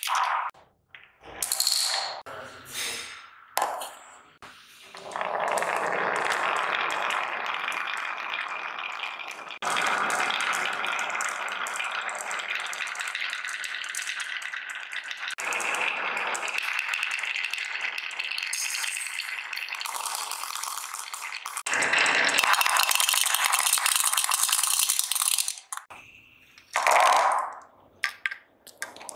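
Many marbles rolling and clattering down carved wooden marble-run tracks, a continuous rattle in several long runs broken by brief pauses. Near the end a short, loud clatter as marbles drop off the track and scatter across the hard floor.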